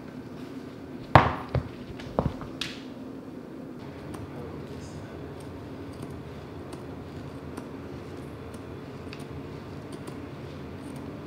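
A few loud sharp knocks about a second and two seconds in, then faint scattered snips of scissors cutting lace fabric along a paper pattern, over a steady low hum.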